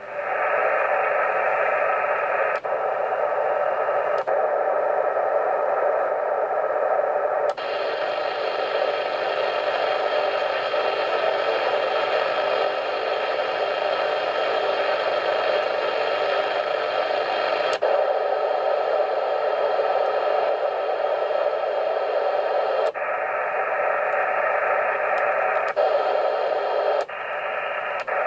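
Yaesu FT-897 transceiver's speaker giving out a steady, dense rushing hiss of local radio interference (QRN) that holds the S-meter around S8 on the VHF band. In AM mode, for about ten seconds in the middle, the hiss widens and brightens, and short clicks mark the changes of receive mode.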